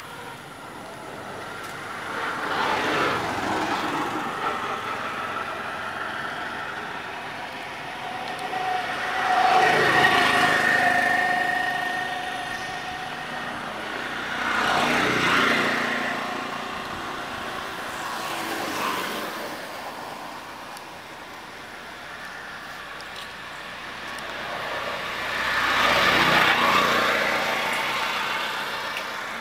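Road vehicles passing by one after another: about five swells of engine and tyre noise, each rising and fading over a few seconds.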